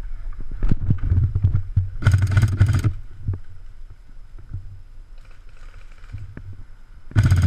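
Airsoft rifle firing two short full-auto bursts of rapid clicking shots, the first about two seconds in lasting under a second, the second near the end. Rustling of brush and gear handling in between.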